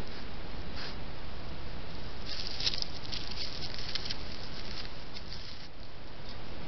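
A white-tailed deer rustling and crackling right at the trail camera, with short clusters of dry crackles, over a steady background hiss.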